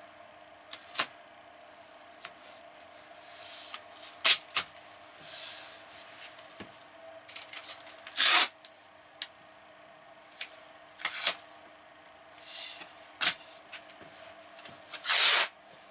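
Blue painter's tape being pulled off the roll in short, loud rips and torn off, with clicks, taps and rubbing as the strips are pressed onto the cabinet edges.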